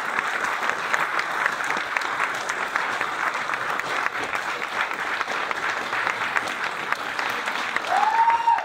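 An audience clapping steadily in a hall. A short tone rises and falls once near the end.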